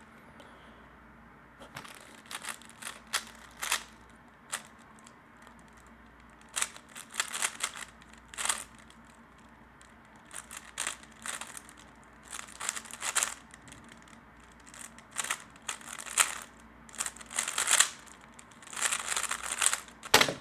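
3x3 speedcube being turned fast in a timed solve: quick runs of plastic clicking and clacking from the layers turning, with short pauses between runs. It starts about a second and a half in and ends with a sharp knock near the end.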